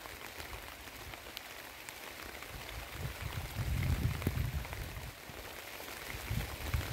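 Steady rain falling, a hiss dotted with small drop ticks, with a low rumble that swells about three to four seconds in.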